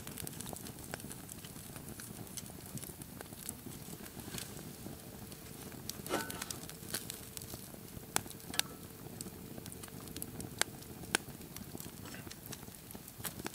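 Steaks sizzling on a grate over a crackling campfire, with scattered sharp clicks and pops from the fire and the metal tongs on the meat and grate.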